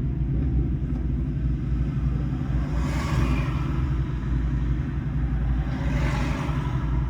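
Toyota Prius driving, a steady low road rumble with two brief whooshes about three and six seconds in.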